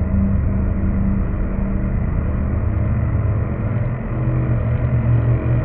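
Muffled, low background music of sustained bass notes that change pitch a couple of times, with nothing high in it.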